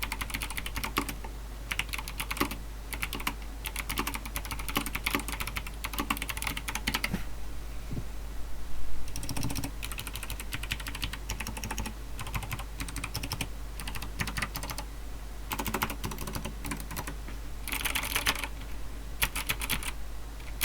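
Typing on a mechanical keyboard fitted with lubed Kailh Box Jade clicky switches: fast runs of sharp clicks for the first several seconds, then shorter bursts separated by pauses. A heavier, lower thump about nine seconds in is the loudest moment.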